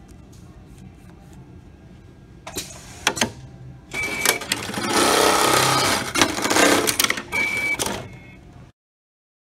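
Programmable automatic label sewing machine cycling: a few sharp clicks as the work clamp is set, then a loud mechanical run with a hiss from about four seconds in, with a brief high tone at its start and again near its end, cutting off abruptly near the end.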